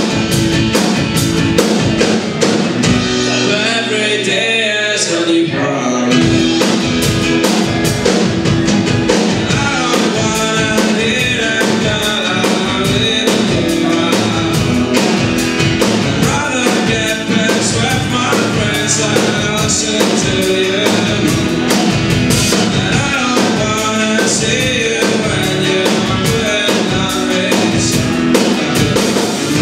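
Live band music: a strummed acoustic guitar with a drum kit keeping a steady beat. The drums stop for a few seconds near the start, then come back in.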